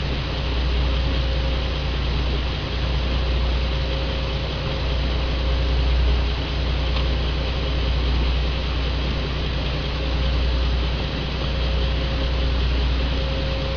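Small survey boat's engine running steadily, a low rumble with a faint steady hum over a hiss of wind and water.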